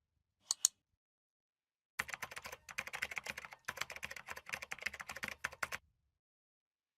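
Typing on a mechanical keyboard: a lone keystroke, then a fast run of keystrokes lasting nearly four seconds with one brief pause.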